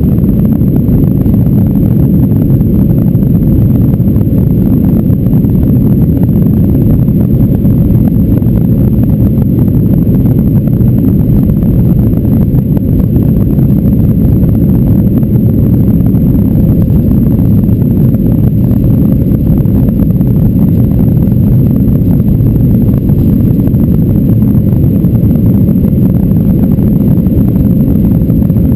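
Boeing 737-800's CFM56-7B turbofan engines at takeoff thrust, heard inside the cabin during the takeoff roll: a loud, steady, deep rumble with no break.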